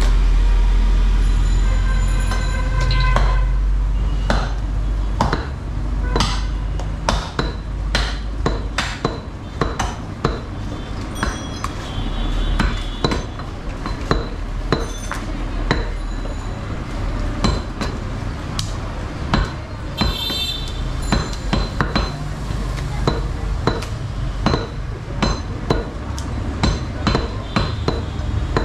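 Butcher's cleavers chopping beef and bone on wooden log chopping blocks: sharp, irregular chops from two butchers working at once, a few strikes a second, over a low steady rumble.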